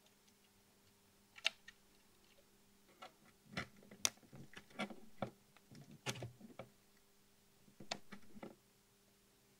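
Small sharp clicks and taps of needle-nose pliers working a resistor's wire lead against metal solder turrets on a turret board, over a faint steady hum. There is one click about a second and a half in, then a busy run of clicks until about six and a half seconds, and a last few near eight seconds.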